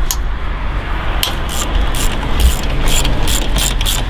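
Ratchet wrench clicking in short runs, the clicks coming faster near the end, over the low steady rumble of an idling car engine.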